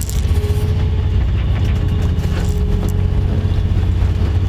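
Boat engine running with a steady low rumble, and a faint steady whine above it.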